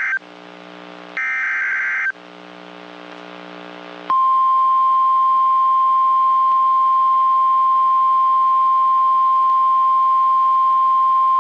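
NOAA Weather Radio emergency alert: the last short, harsh bursts of the SAME digital header, about a second apart. About four seconds in, the 1050 Hz warning alarm tone starts, a single loud steady tone that signals a new warning is about to be broadcast.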